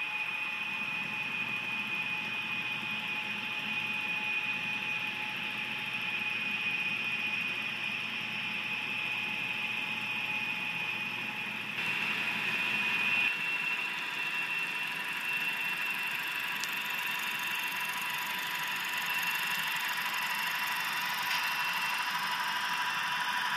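HO scale model diesel locomotives running on the track, giving a steady high-pitched electric whine with a hiss of wheel and track noise. The pitch of the whine shifts a little about halfway through.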